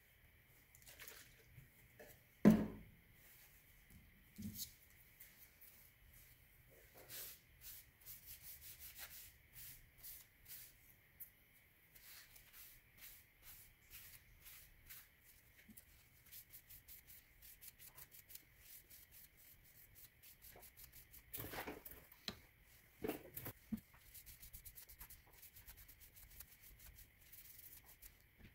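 Paper towel wiping and rubbing over wooden handle scales and a steel knife tang, cleaning them with rubbing alcohol before the epoxy glue-up: many short, faint rubbing strokes. A sharp knock about two and a half seconds in, and a few softer knocks later on.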